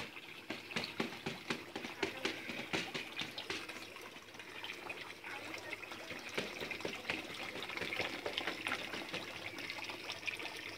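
Water splashing and trickling into a tarp-lined fish tank, with many irregular small splashes.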